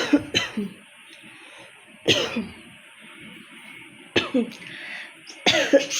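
A woman coughing in short bouts: three quick coughs at the start, a single cough about two seconds in, two more a little after four seconds, and two near the end. The coughs come from a cough and cold she has had since the day before.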